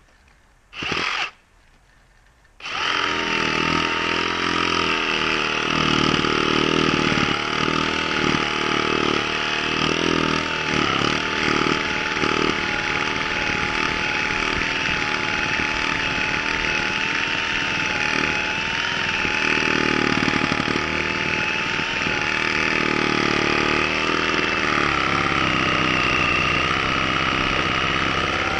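Milwaukee M18 Fuel Sawzall cordless reciprocating saw with a heavy-duty wood blade, cutting through raw, wet green wood. After a short trigger blip about a second in, it runs steadily under heavy load for about 25 seconds, with a whine that wavers slightly, then stops near the end.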